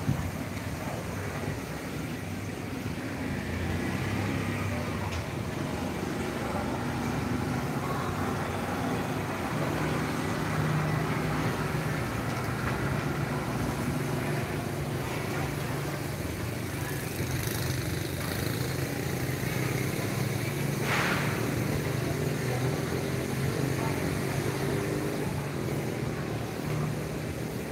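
Night street traffic noise: a steady low engine hum, as of a vehicle idling, with motorbikes and traffic in the street below. A short sharp high-pitched sound stands out about three-quarters of the way through.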